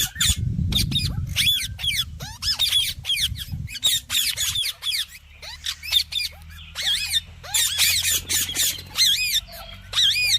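Ringneck parakeet giving a long run of short, high-pitched squawking calls, one after another with brief gaps.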